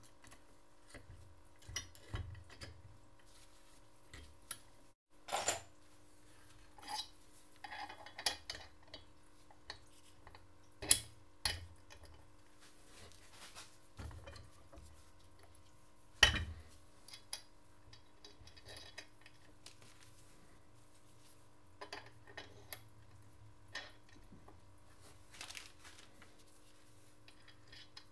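Irregular metallic clicks and clinks as steel gearbox gears, shafts and a circlip are handled and fitted into the aluminium crankcase half of a Simson M531 engine. Two clinks, about 11 and 16 seconds in, stand out above the rest.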